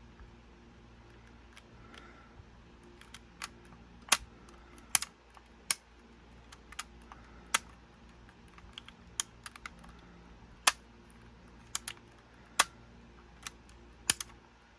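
Irregular light clicks and taps of small plastic and metal parts being handled, from working on an opened Sony cassette Walkman with its drive belts missing.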